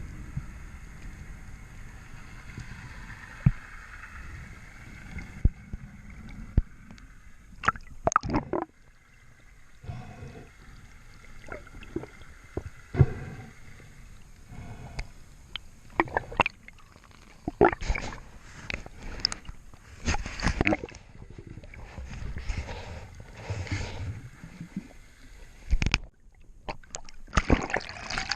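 Water sloshing and gurgling close to the microphone, broken by many irregular sharp knocks and short splashes that come thicker in the second half.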